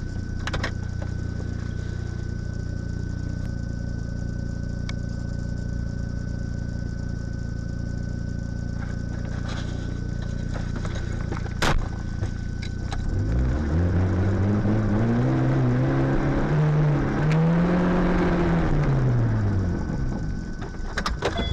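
Car engine idling with a steady low hum and a thin high whine, broken by a couple of sharp clicks. About thirteen seconds in, the engine pulls away, its pitch rising and falling as it picks up speed and changes gear.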